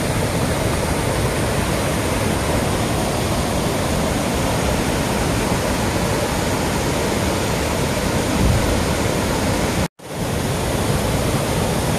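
Waterfall: water pouring over stepped rock ledges, a steady rushing sound with no break except a momentary dropout about ten seconds in.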